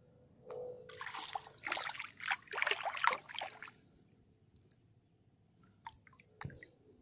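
Water splashing and sloshing for about three seconds as a hand rinses a handful of beetle grubs in shallow water, then a few faint drips.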